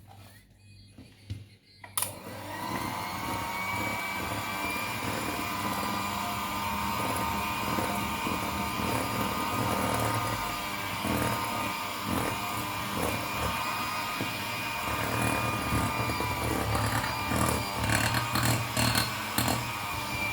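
Electric mixer switched on about two seconds in and running steadily with a whine as it beats cake batter, with a clatter against the bowl near the end.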